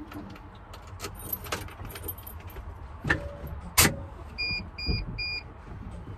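A low diesel truck engine rumble under scattered metallic clicks and one sharp loud click, followed by three short electronic beeps about half a second apart.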